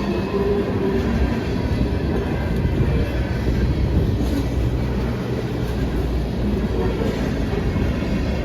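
Freight cars of a long CSX freight train rolling past, a steady low rumble of wheels on rail.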